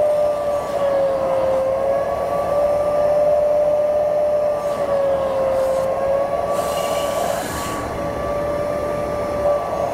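Vacuum extraction motor whining steadily while its upholstery nozzle is drawn over a car's fabric door panel, the pitch dipping slightly and recovering a few times. A brief hiss rises over it about two-thirds of the way through.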